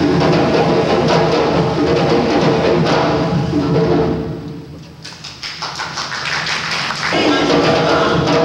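Live drums and percussion playing music for a dance. About halfway through the music drops away to a few sparse drum strokes, then the full ensemble comes back in near the end.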